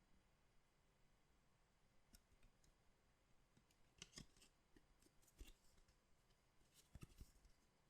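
Faint handling of trading-card packaging: a few short clicks and crinkles in small clusters, the loudest near the end, as packs are handled and opened.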